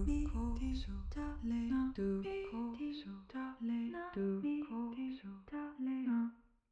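Background music: a simple melody of short, evenly paced notes that grows quieter and fades out near the end.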